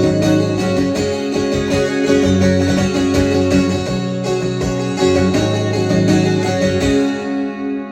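Guitar strummed and picked through an instrumental break in the song, with no singing. Near the end the strumming stops and a chord rings on with a pulsing wobble.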